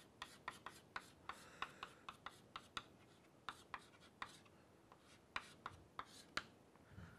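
Chalk writing on a chalkboard: a faint, quick, irregular series of sharp taps and short scrapes as letters and symbols are stroked out.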